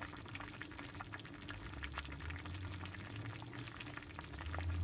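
Ramen soup simmering in a saucepan on the stove, with a steady patter of small bubbles popping at the surface. A low hum comes in about two seconds in.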